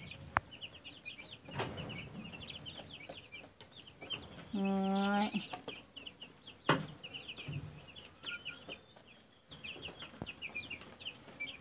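A flock of 12-day-old broiler chicks peeping nonstop, a fast chatter of short high cheeps. About halfway through, a short steady hum from a person stands out, and soon after comes a sharp knock.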